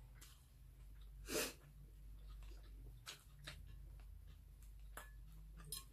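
Faint eating sounds from a person at a meal: scattered soft mouth and utensil clicks, with one short breathy burst, like a sniff, about a second and a half in.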